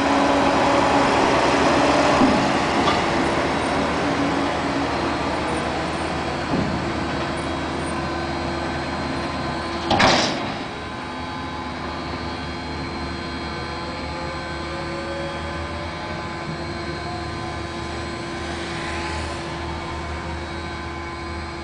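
Fendt tractor's diesel engine running as it pulls a tipping trailer, louder at first and then settling to a quieter steady hum as it moves off. About halfway through there is one sharp loud bang.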